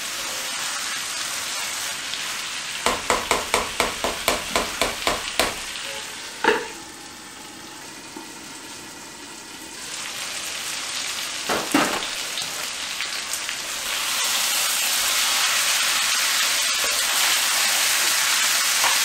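Chicken pieces and curry paste sizzling in a wok, stirred with a spatula. A few seconds in comes a quick run of sharp scraping strokes, about four a second, then a sharp knock. The sizzle falls quieter for a few seconds and comes back louder and steady for the last five seconds.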